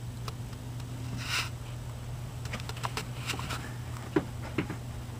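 Low steady hum, with a short breathy rush of hiss about a second and a half in and a few faint, light clicks.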